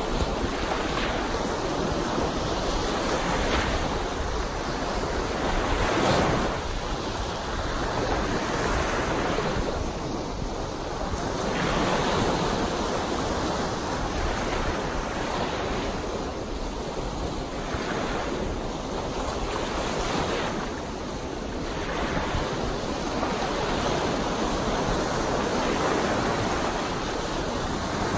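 Small, choppy lake waves breaking and washing up on a sandy beach in a continuous rush of surf, swelling and easing every few seconds and loudest about six seconds in, with wind blowing over the water.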